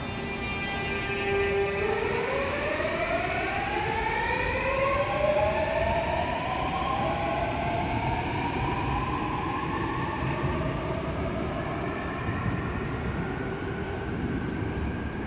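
A Seoul Subway Line 7 electric train pulls out of the station. Its motors give a whine that holds steady at first, then rises in pitch in several overlapping sweeps as the train gathers speed, over a steady rumble of running on the rails.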